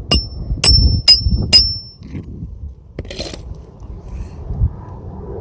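Hammer driving a roofing nail through a shingle: four sharp, ringing metal-on-metal strikes in under two seconds, then a lighter tap about three seconds in.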